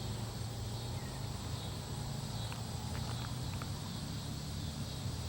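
Outdoor evening ambience: a steady high chirring of insects, over a low steady hum, with a few faint clicks in the middle.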